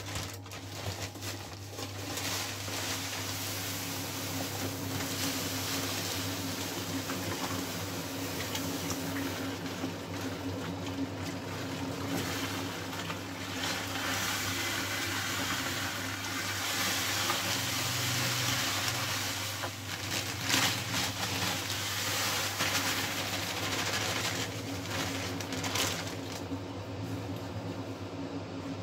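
Lager malt grain poured from a plastic bag into mash water, with the bag rustling and the grain and water stirred by hand, over a steady low hum.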